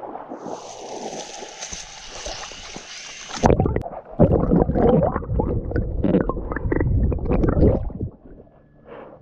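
Water sloshing, splashing and gurgling up close as an RC crawler truck wades through a flooded culvert. A thin high whine over hiss comes first; about three and a half seconds in, loud irregular splashing and gurgling take over, and it dies down near the end.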